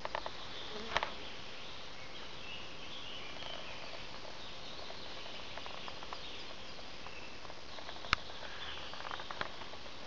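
Summer forest ambience: a steady hiss with faint high chirps scattered through it, broken by a few sharp clicks and crackles. The loudest single click comes about eight seconds in, with a small cluster just after.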